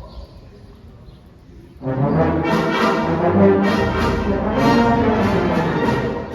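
Low room noise, then about two seconds in a community concert band starts playing, brass to the fore, with sustained chords.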